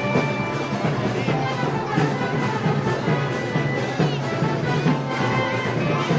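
Live festival band music, Moros y Cristianos style, with a steady beat.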